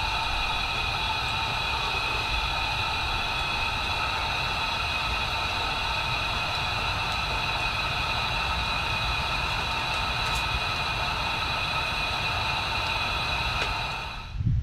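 Steady hiss and hum with a low rumble underneath and several steady high tones, unchanging throughout; it drops away near the end.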